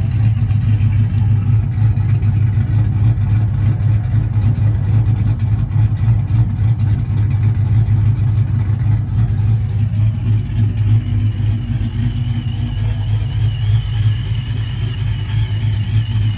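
A Ram pickup's 5.7 Hemi V8, fitted with a new camshaft, idling steadily, heard mostly through its exhaust. A faint wavering whine comes in near the end.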